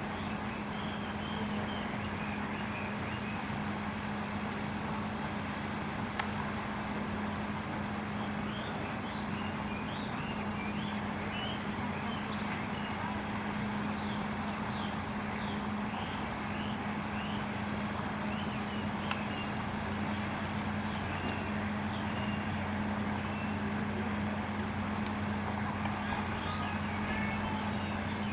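Steady outdoor background: a constant low mechanical hum over an even wash of noise, with faint short high chirps scattered through.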